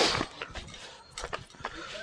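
A short, loud rush of air hitting the microphone, then faint scuffs and clicks of footsteps on rock and the handheld camera being moved.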